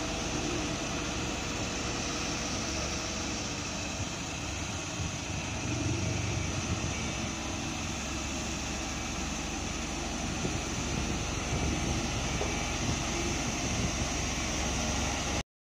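Steady engine noise of a water tanker truck and earthmoving machinery running on a construction site. It cuts off suddenly near the end.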